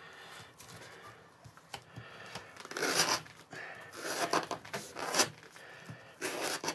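An M390 steel knife blade scraping across a thick twisted rope in several short strokes, mostly in the second half. The edge skids over the fibres instead of biting in: the fine CBN-stone finish, even slightly roughened, won't cut into rope.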